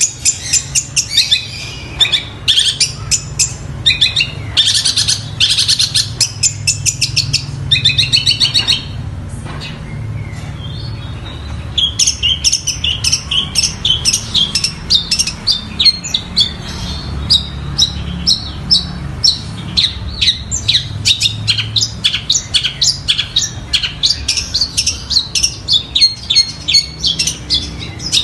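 Long-tailed shrike singing loudly in rapid, chattering bursts of chirps, a song that includes mimicry of fighting tree sparrows and stork-billed kingfisher calls. It pauses briefly about nine seconds in, then resumes with a long fast run of chirps.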